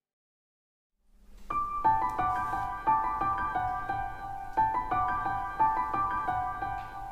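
Background keyboard music, a melody of struck notes, starting abruptly about a second in after total silence.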